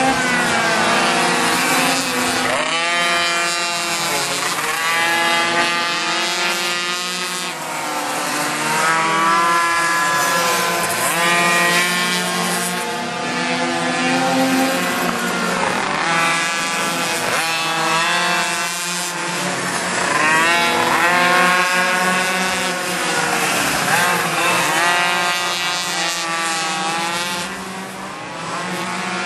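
A pack of liquid-cooled Chinese minimoto engines racing on a circuit, small two-strokes revving high. The pitch climbs as the bikes accelerate and drops as they pass, over and over, with a steady low hum underneath.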